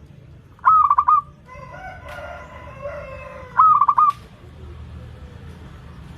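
Zebra dove (perkutut) cooing twice, each time a short, loud run of quick rolling notes. A softer, longer call, a rooster crowing, comes between the two.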